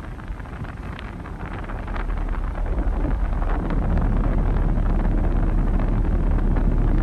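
Road noise inside a moving car's cabin at expressway speed: a steady low rumble of tyres and engine with a hiss of air, growing louder between about two and four seconds in.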